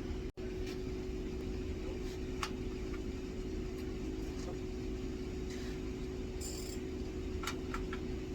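Steady machine hum of a collision repair shop, with a low rumble, broken by a few light clicks and metallic taps.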